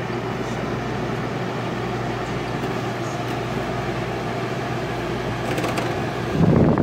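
1966 Admiral Royal 106 window air conditioner running: a steady hum with the rush of its blower fan. It is working normally on a full refrigerant charge with its replaced fan motor. The rush grows louder and rougher near the end.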